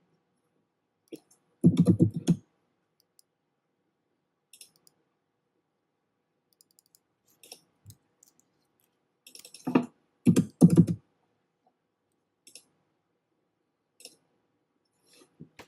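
Computer mouse and keyboard clicks while chart settings are changed, scattered and sparse, with louder clusters of knocks about two seconds in and again about ten seconds in.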